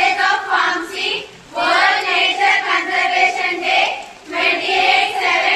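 Voices singing a song, possibly several together, in sustained phrases with short breaks between them.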